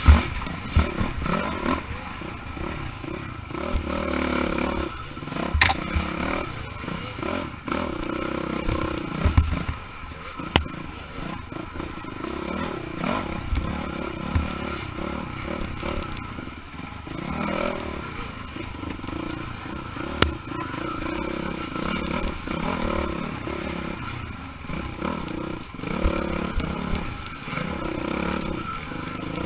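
Dirt bike engine running under constant throttle changes, rising and falling as it is ridden hard along a rough trail, with clatter and scraping from the bike and brush. A few sharp knocks stand out, near the start and at about 6, 10 and 20 seconds in.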